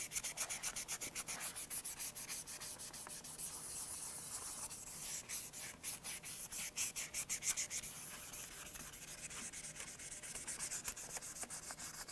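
Hand sanding with a fine P1000-grit 3M flexible abrasive sheet, backed by the fingertips, on the urethane finish of a guitar neck: rapid back-and-forth strokes, a steady rasping hiss that pauses briefly a few times midway.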